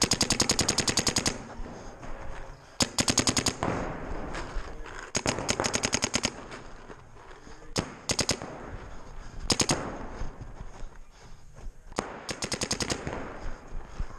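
Paintball marker firing in rapid strings of shots, about a dozen a second. There are six bursts: a long one of over a second at the start, then shorter strings every two seconds or so.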